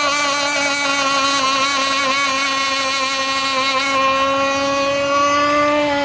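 RC racing catamaran with a 7316 brushless electric motor running flat out across the water: a loud, steady, many-toned motor and propeller whine, its pitch sagging slightly near the end.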